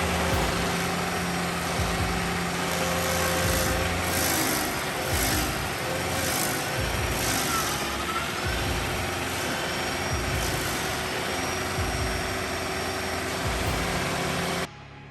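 Bandit SG75 stump grinder working a tree stump: its engine runs steadily under load while the cutter wheel chews into the wood with a dense grinding noise. The sound cuts off sharply just before the end.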